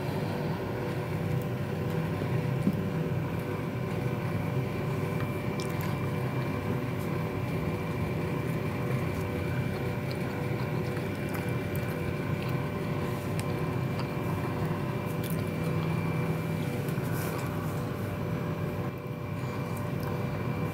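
A steady mechanical hum with a few faint, even high tones in it, and a few faint clicks.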